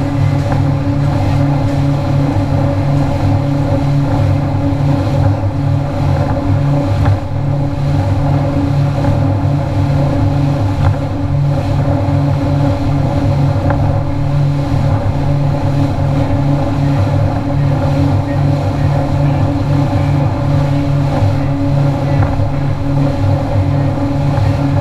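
Boat engine running steadily at a constant speed, a loud, even low drone.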